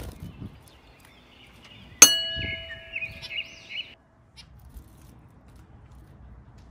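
A single loud metallic ding about two seconds in, ringing briefly, over high chirping and warbling that cuts off abruptly near four seconds; after that, a few faint short chirps from caged zebra finches.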